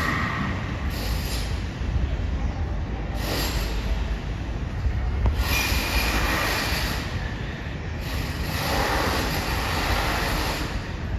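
Renovation noise from an old building across the street: a steady low rumble with several second-long bursts of higher-pitched power-tool noise.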